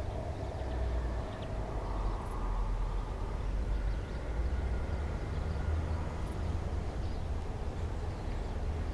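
Wind gusting: a low rumbling buffeting that swells and dips, with a faint hiss above it.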